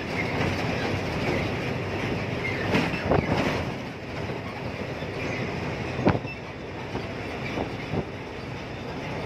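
Steady road and engine noise inside a diesel truck's cab rolling across a concrete bridge. A few sharp knocks and rattles come through: about three seconds in, about six seconds in, and twice near the end.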